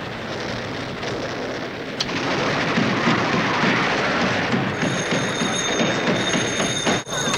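A television set blaring a steady loud hiss with a low rumble underneath, which swells a little after two seconds in.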